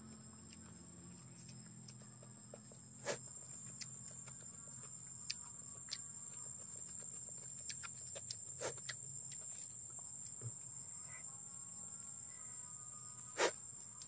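Mouth sounds of someone eating rice and fish by hand: a few sharp smacking clicks, the loudest near the end, over a steady high-pitched whine.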